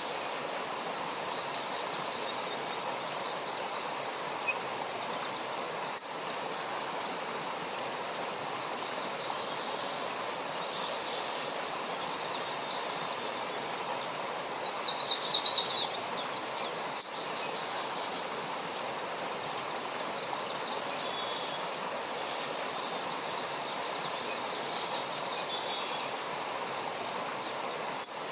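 A stream flowing with a steady rush of water, with birds chirping and trilling over it. The chirps come in short spells, loudest about halfway through.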